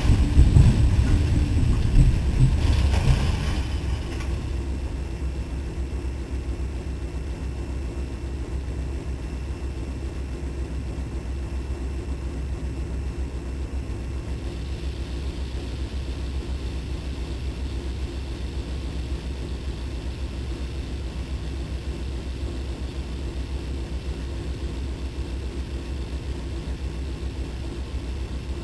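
Tornado wind roaring at first and dying away over the first few seconds, leaving the steady low rumble of an idling diesel locomotive engine.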